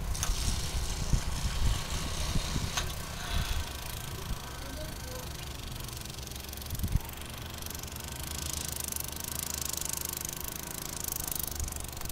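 A small petrol lawn edger running at a distance, a faint wavering engine hum, under a low, uneven rumble.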